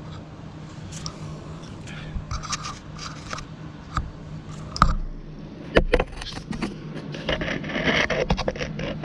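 Handling noise from a camera moved around under a car: irregular scraping and rubbing with several sharp knocks, the loudest about five and six seconds in, over a steady low hum.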